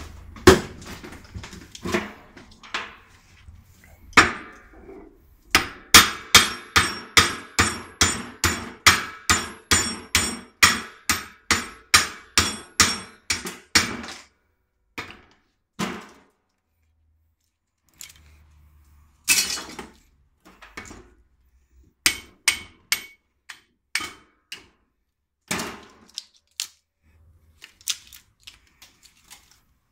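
Hand hammer striking a small transformer's steel core, a quick steady run of about two to three metallic blows a second for several seconds, then scattered single knocks and short clusters. This is a small transformer being knocked apart to free its copper winding.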